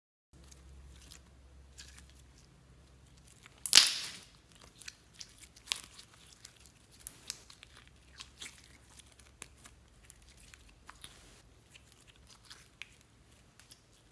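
Clear yellow slime being squeezed and stretched by hand, giving one loud crackling tear about four seconds in, then a run of small sticky pops and clicks.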